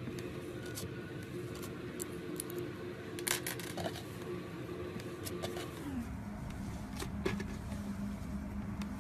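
Thick, doughy slime being pressed and stretched by hand, giving scattered soft crackles and sharp little pops, with the loudest about three and seven seconds in. Under it runs a steady low hum that drops in pitch about six seconds in.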